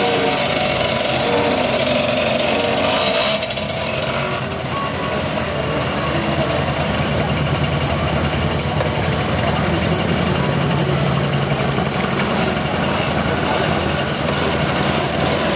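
Several small two-stroke moped engines running together, among them a Piaggio Ciao, with a brief dip in level about three and a half seconds in.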